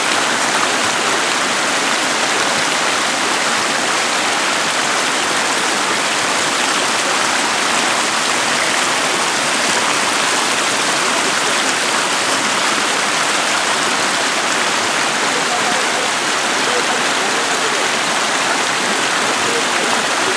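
Creek water running over rocks in small rapids: a steady, even rush that does not change.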